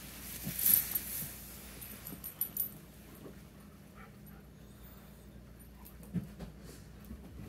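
Dogs whimpering and panting, with a short, louder burst of rustling noise about a second in.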